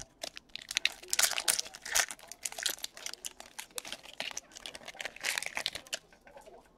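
Wrapper of an Upper Deck SP Authentic hockey card pack being torn open and crinkled by hand, a dense crackle with sharp clicks that stops about six seconds in.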